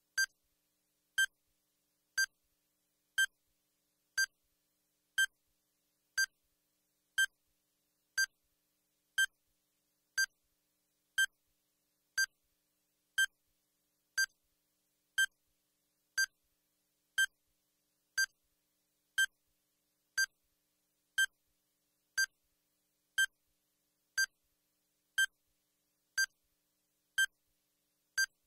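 Countdown timer sound effect: a short, high electronic blip once every second, with silence between the blips.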